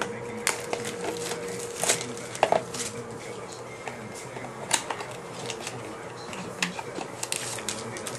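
A baseball card pack being opened and its cards handled: scattered sharp clicks, taps and rustles at an uneven pace, with a faint steady tone in the first half.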